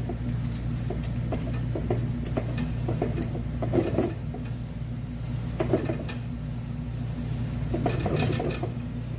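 Open rear differential running with its cover off: the ring and pinion turn over a steady low drivetrain hum, with irregular light clicks and knocks coming through.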